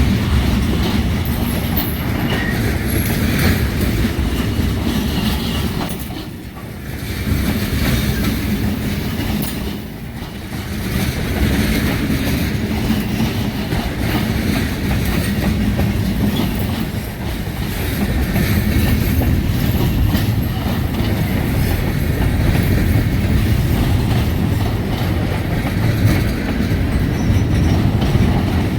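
Freight train rolling past at close range, its wheels clacking over the rail joints in a steady rumble. The noise dips briefly about six and ten seconds in.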